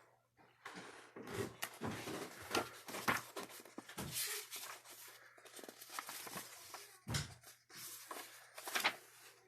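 Irregular paper rustling and light knocks from a picture book being handled and its pages turned.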